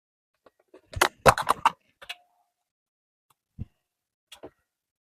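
Kitchen utensils and containers clicking and knocking as food is handled: a quick run of sharp clicks about a second in, then a few single knocks and one low thump.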